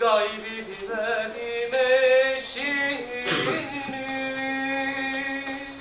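A man singing a slow, drawn-out melody, the last note held for nearly two seconds.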